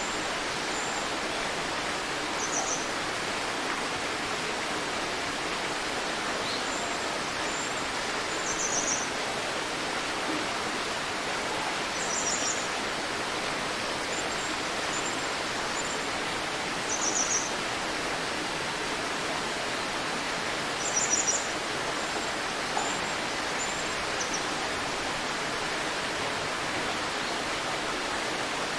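A river flowing steadily, with small birds giving short, high chirps and quick trills every few seconds; the calls stop a few seconds before the end.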